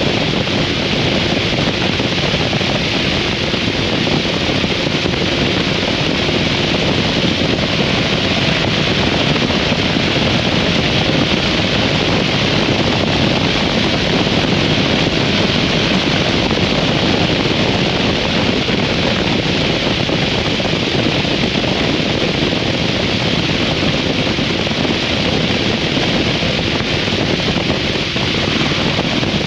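Steady wind rush over the microphone of a moving 2003 Harley-Davidson V-Rod, with the bike's liquid-cooled V-twin engine running steadily beneath it.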